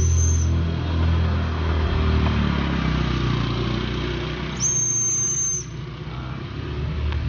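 Car engine idling with a steady low hum. A high, thin whistle tone sounds briefly at the start and again for about a second near the middle.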